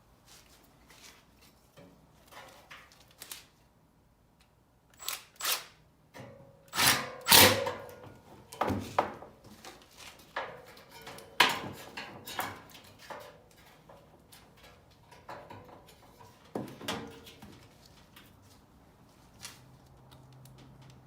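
Irregular knocks, clanks and clicks of hand tools and metal parts being handled, the loudest about seven and eleven seconds in.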